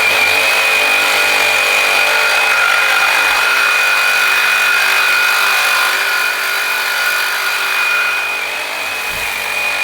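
Corded reciprocating saw with a carbide-tooth blade running steadily through thick steel, a constant high-pitched whine over the cutting noise; it gets a little quieter about six seconds in.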